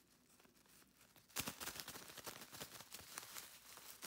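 Clear plastic bag of dried sweet basil crinkling as it is handled and turned over, a faint run of crackles starting about a second and a half in.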